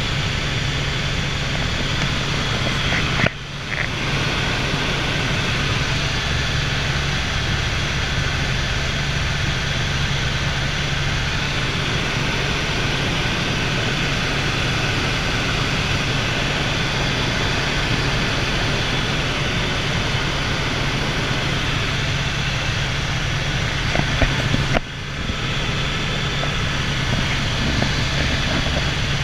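Helicopter turbine and rotor noise heard from inside the cabin in flight: a steady, loud drone with a low hum underneath. It briefly dips twice, about three seconds in and near the end.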